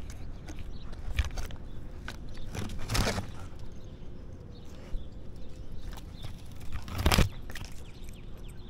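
Bare shrub twigs scraping and crackling against a Siberian Husky's back-mounted camera as the dog pushes through the branches. Scattered clicks are heard, with two louder rustles about three seconds in and again near seven seconds.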